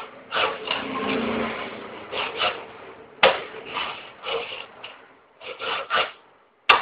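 Fingerboard rolling and its deck scraping in a run of short scrapes, with two sharp clacks, about three seconds in and near the end.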